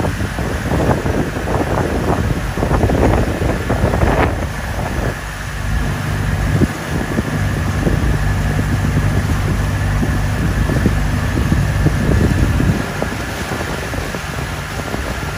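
Wind buffeting the microphone over a boat's engine running steadily. The engine's low hum comes through most clearly from about five seconds in until near the end.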